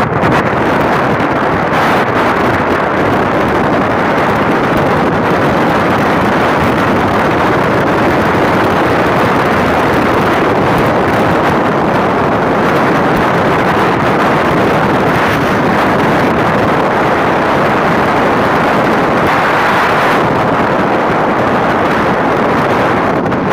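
Loud, steady wind rush over the microphone from riding a motorcycle at speed, with road noise mixed in.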